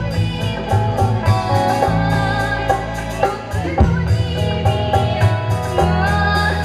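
A woman singing into a microphone, amplified, over a steady instrumental accompaniment with a bass line and a regular beat.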